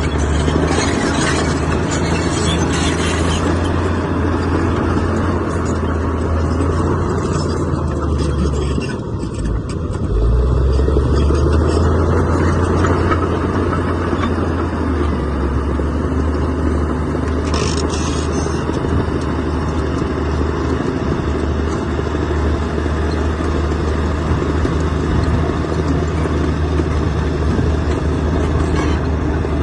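Heavy diesel engine of earthmoving machinery running steadily under load. It dips briefly around nine seconds in, then picks up again louder. Intermittent clatter comes through near the start and again at about 17 seconds.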